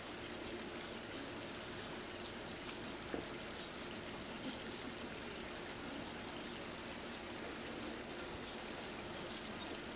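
Steady hiss of outdoor background noise with faint, scattered high chirps and one soft knock about three seconds in.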